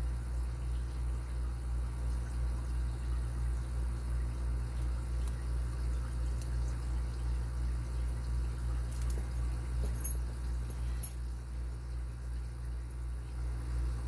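Faint ticks and clicks of a lock pick working the pins of an Abus 83AL50 padlock during single-pin picking, with one sharper click about eleven seconds in. A steady, slightly pulsing low hum runs underneath and is the loudest sound.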